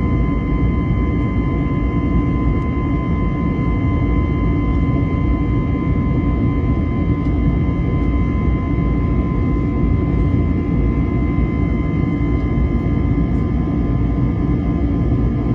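Inside the cabin of an Airbus A321neo, its CFM LEAP-1A turbofans run at steady power: a constant deep rumble overlaid with steady high whining tones.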